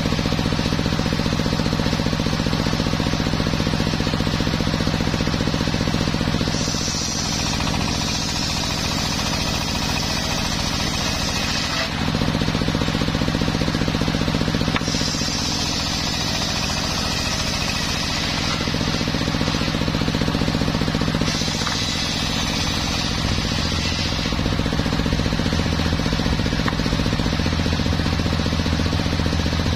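Homemade bench circular sawmill running steadily with a low mechanical hum while it rips teak heartwood. Three times, for a few seconds each, a harsher high-pitched hiss rises over the hum as the blade cuts through the wood.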